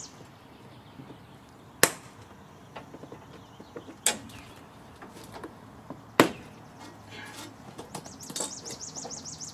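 Hand cutters snipping through the zip ties that hold a folded Air Lift air spring inside a truck's rear coil spring: three sharp snaps about two seconds apart, with faint clicks of the tool between them.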